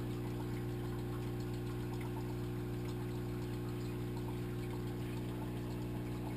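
Steady low hum of an aquarium pump motor, heard underwater, with faint scattered ticks over it.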